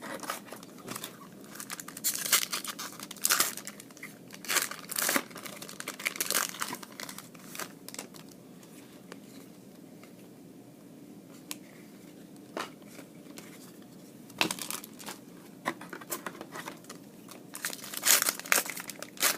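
Foil wrappers of trading-card packs being crinkled and torn open by hand, in several bursts with a quieter stretch in the middle.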